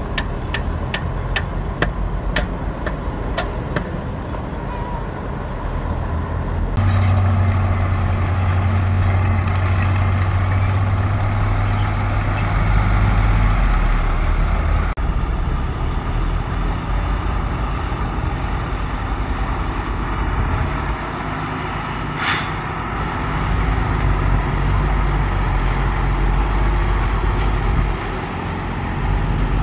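Heavy diesel dump truck engines running, with a deep engine note rising about a quarter of the way through as a loaded truck pulls. A rapid ticking of about three a second comes at the start, and a short sharp air-brake hiss comes about two-thirds of the way through.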